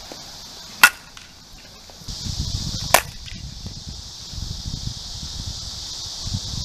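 Softball bat hitting a softball twice: two sharp cracks about two seconds apart, the first the louder. A steady high hiss runs underneath, and a low rumble like wind on the microphone comes in just before the second hit.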